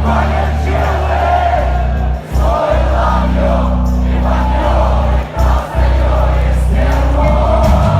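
Rock music: sustained heavy bass and guitar notes that shift every second or two, with voices singing over them.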